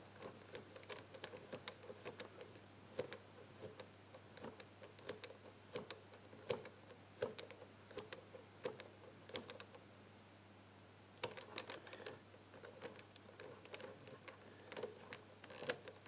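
Numbered wheels of an ABUS Tresor Chain Catena Combo 1385 combination bike lock being turned by hand, giving faint, irregular clicks as they step from number to number while each wheel is felt for its gate. There is a short pause in the clicking about two-thirds of the way through.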